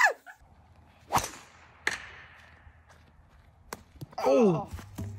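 Two sharp whip-like strikes, about a second apart, then a short falling vocal cry near the end.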